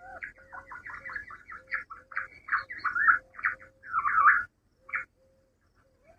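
Quail calling: a rapid run of short chirping notes that grows louder, breaks off about four and a half seconds in, then one more note.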